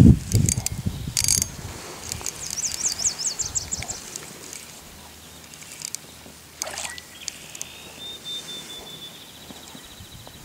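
Fishing reel working against a hooked fish on a bent rod: the reel cranked in bursts and the drag letting out line in runs of quick ticks, with a loud knock of handling at the start.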